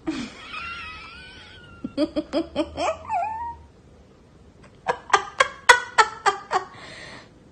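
Boston terrier vocalising in high, wavering whines and a run of short yowling cries, with laughter alongside.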